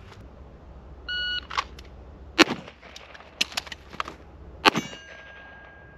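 A shot timer beeps once, briefly, about a second in. A string of handgun shots follows over the next few seconds, the loudest about 2.5 and 4.7 seconds in, and a steel target rings after the last shot, fading over about two seconds.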